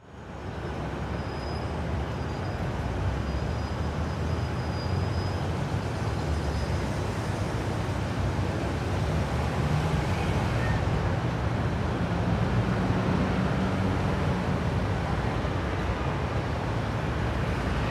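Street traffic noise: a steady low rumble of vehicle engines and passing cars.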